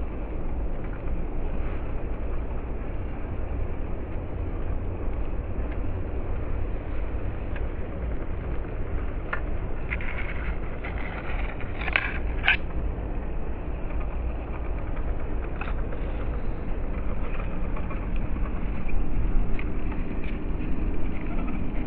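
The small electric motor and geartrain of a WPL C24 Toyota Hilux 1/16-scale RC crawler run steadily as it drives through tall grass. Scattered crackles of grass being pushed through come around the middle.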